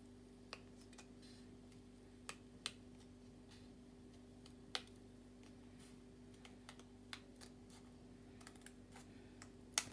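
Scissors snipping through folded cardboard to cut out a heart template: faint, irregular clicks a second or more apart over a steady low hum.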